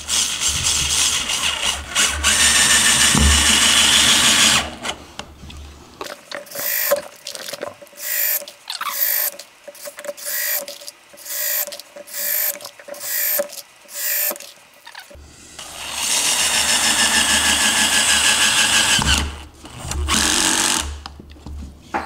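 Corded PRIMERO DDR-70AZA drill driver driving wood screws into a softwood board: a long steady motor run as a screw goes in, then a quick series of short runs, about two a second, then two more long runs near the end.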